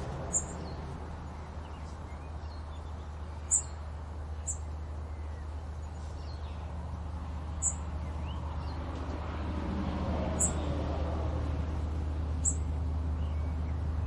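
Small bird giving short, high chirps, about six spread over several seconds, over a steady low rumble of outdoor ambience.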